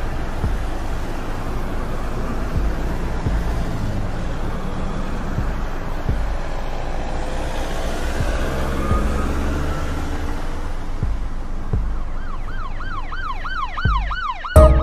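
New York street traffic: a steady wash of engines and road noise with a low rumble. Near the end a siren comes in, yelping up and down about three times a second, and a sudden loud thump lands just before the end.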